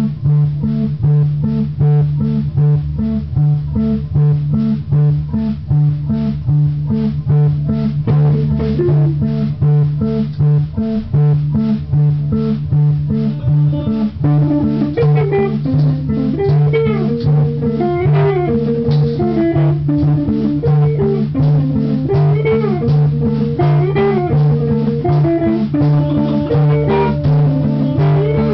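Guitar music: a steady, repeating bass line with guitar over it, and from about halfway in a lead guitar playing bent, sliding notes.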